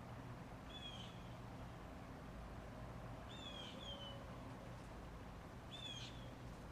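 Sears Turn of the Century Deluxe ceiling fan (model 292.105402) running with a steady low motor hum, while a short high chirp repeats about every two and a half seconds, once doubled.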